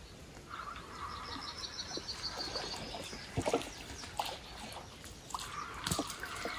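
Songbirds singing: a fast trill of high notes starts about half a second in and lasts a couple of seconds, with a few faint clicks and knocks.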